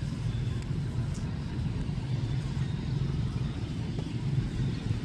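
A low, steady engine hum, like a motor vehicle running.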